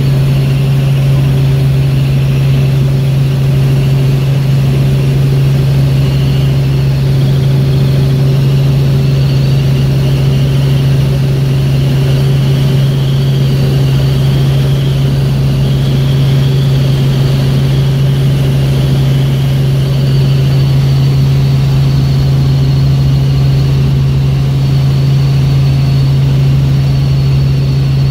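Helicopter in flight heard from inside the cabin: a loud, steady drone of engine and rotors, with a strong low hum and a faint high whine above it.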